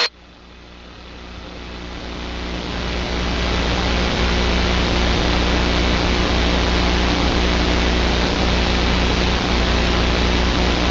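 Police helicopter's engine and rotor noise as heard on the aircraft's own audio: a steady low drone with a layer of hiss. It fades in over the first few seconds, then holds even.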